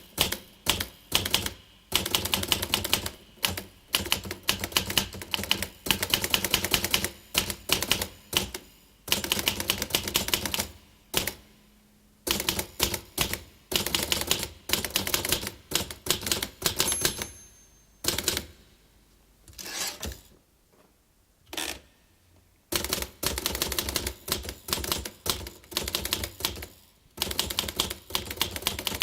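Typewriter keys striking in quick runs of sharp clacks, broken by short pauses, with one brief high ring partway through.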